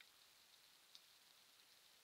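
Near silence: a faint steady hiss with a couple of faint ticks, one at the start and one about a second in.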